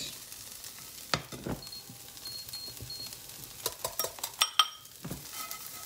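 Diced vegetables and paneer sizzling in a frying pan. In the first half come a few short faint beeps from the induction hob's touch controls as the heat is turned down, and in the second half a run of clinks and knocks of utensils on the pan and the egg bowl.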